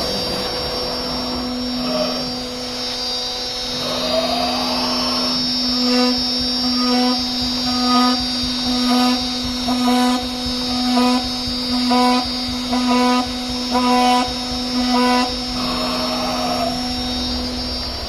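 CNC router with a horizontal spindle running: the spindle gives a steady hum with a high whine over it. Its axis motors whir up in pitch as they move, and through the middle they make short, regular moves about once a second.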